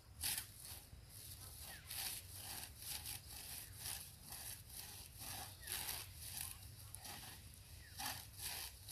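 Faint rustling and scraping of dry straw in short, irregular bursts, about one or two a second.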